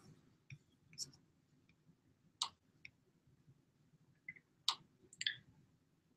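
Scattered faint clicks and taps, about seven of them spread unevenly, as from a laptop's keys or trackpad being handled.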